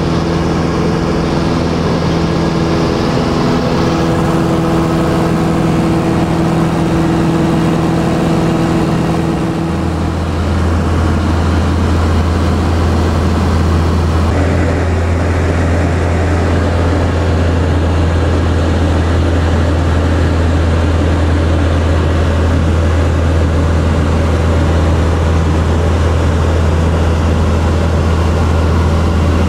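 Steady drone of a Robin DR400's four-cylinder piston engine and propeller, heard inside the cabin in flight. Its tone changes slightly about ten seconds in.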